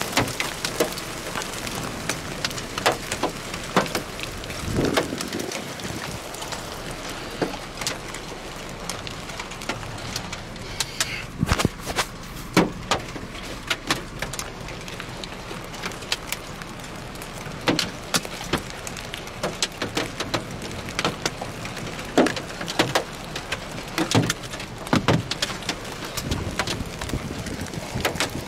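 Heavy rain falling, with large drops striking close by as irregular sharp taps over a steady hiss.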